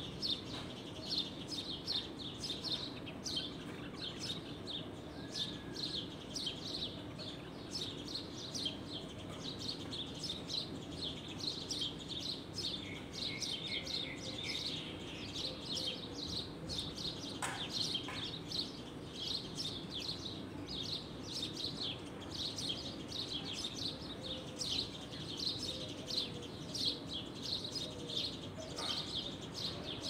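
Birds chirping in the trees: many short, high chirps, several a second and overlapping, over a steady low background rumble.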